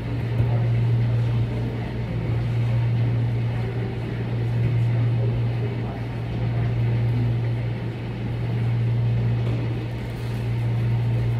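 A steady low hum that swells and fades slowly every few seconds, under a faint murmur.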